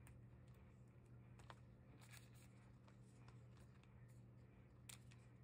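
Near silence: a steady low hum under a few faint ticks and scratches from hands handling trading cards, the clearest a little before the end.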